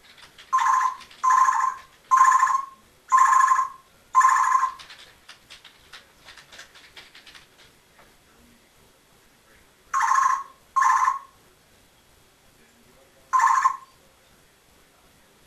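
Congo African grey parrot mimicking an electronic beep: five short, even beeps about one a second, then after a pause two more close together and a last single one.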